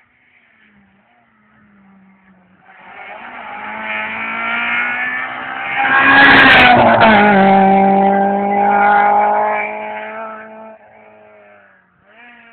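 Rally car engine approaching and passing close by, getting louder, its note dropping in pitch as it goes past, then holding steady as it drives away and fades.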